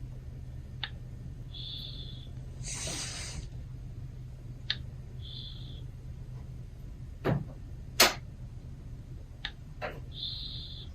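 Maine Coon cat snoring in its sleep: a short high whistle on each breath, about every three to four seconds, and a louder breathy snort about three seconds in. Two sharp clicks about seven and eight seconds in are the loudest sounds, over a steady low hum.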